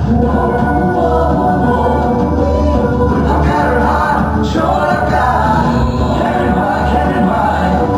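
Loud recorded music with voices singing over a steady bass line.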